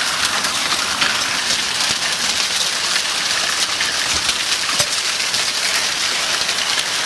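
Heavy hail and rain pelting the lawn, gravel and a car: a loud, dense, steady clatter of countless small hailstone impacts.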